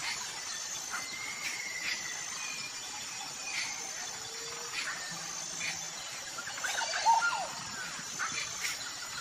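Small birds chirping: scattered short chirps, with a quick flurry of chirps about seven seconds in, the loudest part, over a steady high-pitched tone.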